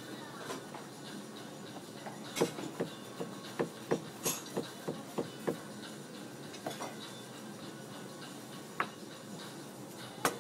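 Knife chopping cucumber on a cutting board: a quick run of sharp taps, about three or four a second for some three seconds, then a few single knocks, over a low steady background hubbub.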